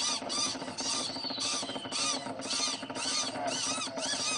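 Animated small birds' high, squeaky chirping: a rapid run of short chirps, about three a second.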